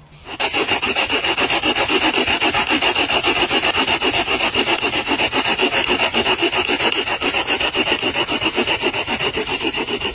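Saw cutting through wood in fast, even strokes, with a steady rasping hiss; it starts just after the start and stops near the end.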